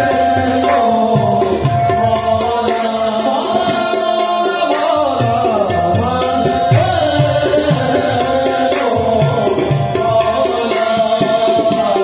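Live devotional music with tabla drumming under a steady held note and a winding melodic line.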